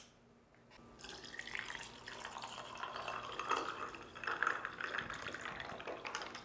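Iced tea poured from a can into a glass over ice cubes, starting about a second in: the liquid splashes and gurgles and the ice crackles and clinks.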